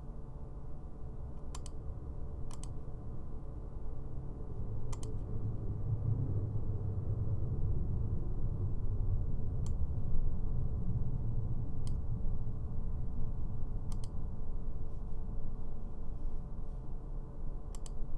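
Computer mouse clicking now and then, about seven single clicks spaced one to four seconds apart, over a steady low hum.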